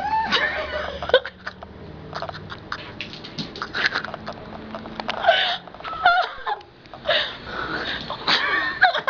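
A person gagging and coughing in short, irregular spasms with breathy gasps, choking on a mouthful of dry ground cinnamon.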